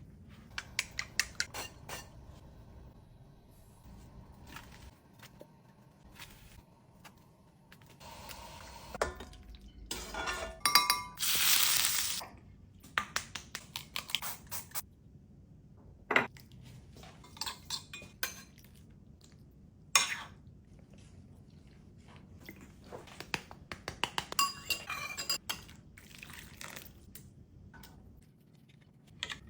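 Kitchen dishes and utensils clinking and knocking: scattered sharp clicks of bowls, spoons and containers, with a louder rush of noise about a third of the way through.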